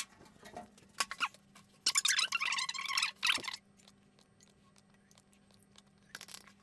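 Handling noise from plastic water bottles. There are a few sharp clicks, then about two seconds in a crinkly, rustling burst lasting about a second and a half as the bottles are brought in, handled and set down on the desk.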